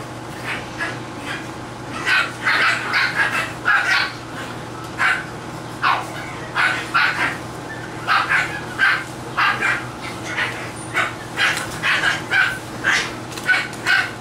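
English Bulldog puppies yapping and barking in short, repeated bursts, several a second at times, over a steady low hum.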